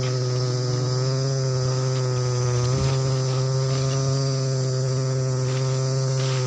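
A swarm of giant honeybees buzzing in a steady, unbroken drone close around the microphone: the bees are chasing the person who is retreating from their nest.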